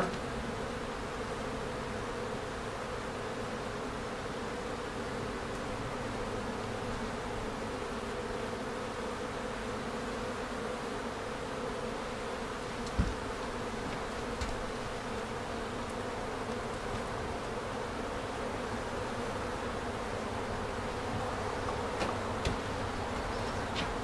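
Steady hum of a calm honey bee colony in an open hive, with a single knock about halfway through.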